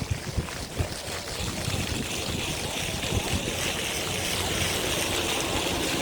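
Water fountain splashing steadily, its hiss growing stronger about halfway through, with low rumbles of wind on the microphone.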